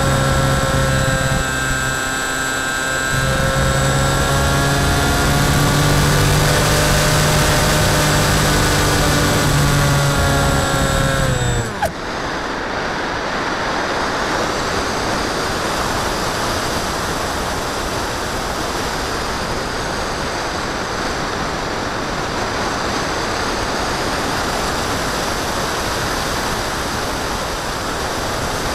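Electric motor and pusher propeller of a Phantom FX61 flying wing running with a steady buzzing drone, heard through the onboard camera's microphone. About twelve seconds in the motor cuts off suddenly, leaving a steady rush of wind over the airframe as the wing glides.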